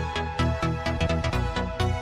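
Electronic dance music with a steady beat of about four thumps a second.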